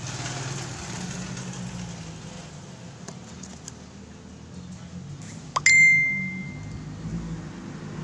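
A single bright, bell-like metallic ding about five and a half seconds in, struck with a click and ringing out over about a second, over a steady low background hum with a few faint ticks.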